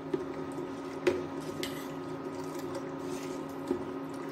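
Steel ladle stirring liquid in a stainless steel saucepan, clinking against the pan a few times, loudest about a second in, with a squishy sound from the liquid. Under it runs the steady hum of an induction cooktop.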